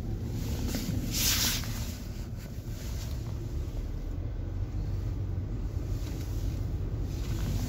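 Steady low rumble heard inside a Mercedes GLE's cabin as the SUV wades through deep floodwater, with water washing against the body. A brief louder hiss about a second in.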